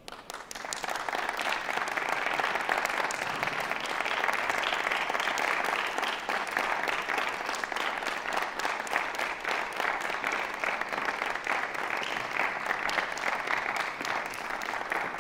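Audience applauding: the clapping breaks out at once and builds within a second or two into steady applause.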